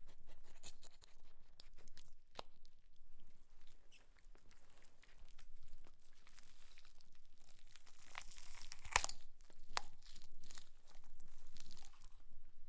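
Wet cutting off of a deer carcass's leg: irregular wet tearing and crunching of flesh and sinew, with a few sharp cracks about two-thirds of the way through.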